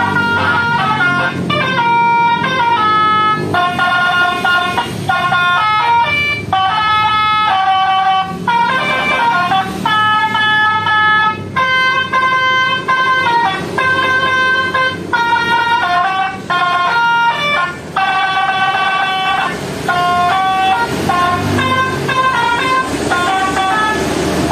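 Basuri musical horn, an electronic multi-tone bus 'telolet' horn, playing a fast melody of changing pitched notes, broken by a few short pauses.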